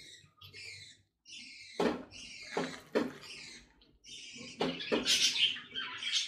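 Spatula stirring a thick, wet mixture of yogurt, onion paste and mutton pieces in a nonstick pan: irregular scraping, sloshing strokes, loudest about five seconds in.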